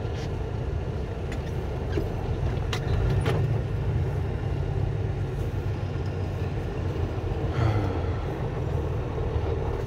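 Cab of a semi-truck while driving: the engine and tires make a steady low rumble, with a few brief clicks in the first few seconds.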